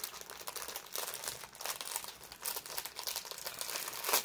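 Clear plastic packaging crinkling as it is handled and opened, in a continuous irregular crackle with a sharper rustle near the end.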